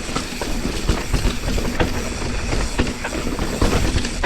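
Mountain bike riding down a rocky trail: tyres rolling over rock with frequent irregular knocks and rattles from the bike, over a steady rush of wind noise.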